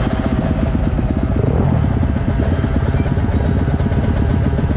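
Yamaha YZ250F's single-cylinder four-stroke engine idling steadily close by, with a fast, even pulse.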